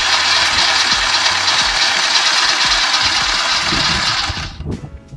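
Circular saw blade mounted on the rear axle of a Sur-Ron electric dirt bike, driven by the bike's motor and cutting into a tree trunk: a loud, steady grinding that stops about four and a half seconds in.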